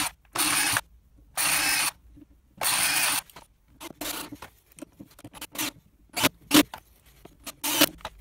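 Cordless drill-driver run in even bursts of about half a second, drilling pilot holes and driving screws into plywood to fit a swivel caster. From about three seconds in, shorter blips of the motor and clicks follow as screws are run home.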